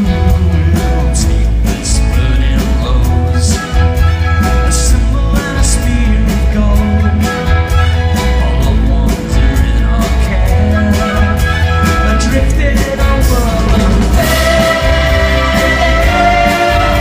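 Live pop-rock band and symphony orchestra playing together, loud, with a steady beat over bass and sustained instrumental notes; a bright held chord comes in near the end.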